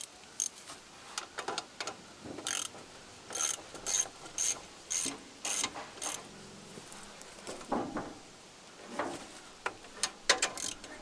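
Hand tool working a fastener on an old riding mower's engine: a run of short metallic clicking strokes, about two a second for a few seconds, then a few scattered clicks near the end.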